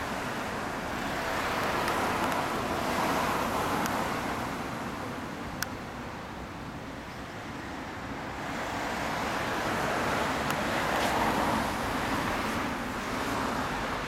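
Road traffic passing on a nearby street, swelling up and fading away twice as vehicles go by, with one sharp click about halfway through.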